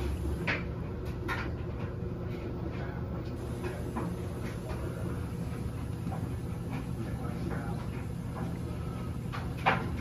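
LG front-load washing machine tumbling a load of clothes in its wash cycle: a steady motor hum with scattered soft knocks as the clothes turn over, and a sharper knock near the end.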